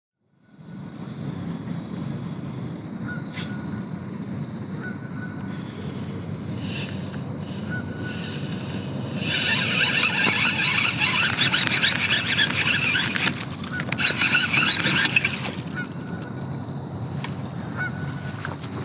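A flock of geese honking, dense and loud for about six seconds in the middle, with scattered single honks before and after.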